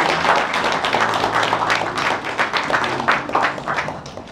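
Audience applauding, a dense spread of many hands clapping that dies away near the end.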